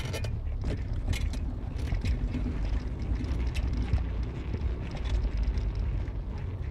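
Low, steady rumble of a vehicle on the move, with scattered light clicks and knocks.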